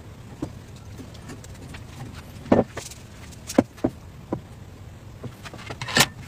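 Scattered light taps and clicks of hands handling food and kitchen utensils on a wooden board beside an electric crepe pan, about six in all, the loudest about two and a half seconds in and again near the end.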